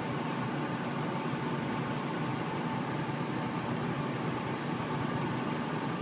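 Carrier Crusader gas furnace's bottom blower fan running steadily at the start of the heating sequence: an even whoosh with a faint hum.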